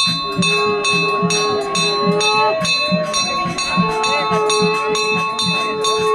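Temple bell rung rapidly and evenly, about four strokes a second, its ringing overtones sustained between strokes. A wind instrument holds long notes over it, stepping to a new pitch about two and a half seconds in and again near four seconds.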